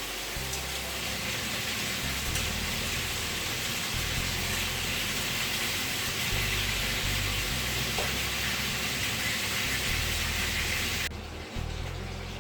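Adobo sizzling in a cooking pan: a steady hiss that cuts off abruptly near the end.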